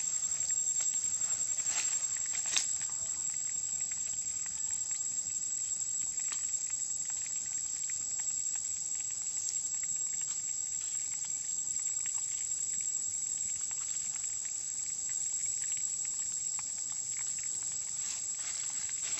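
Steady high-pitched insect drone in forest, with scattered light clicks and a sharper tap about two and a half seconds in.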